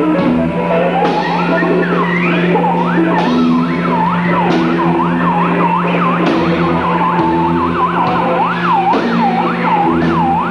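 Live rock band playing a noisy instrumental passage: a steady low drone and a stepping bass line under repeated siren-like swooping pitch glides, about two a second, likely from the electric guitar.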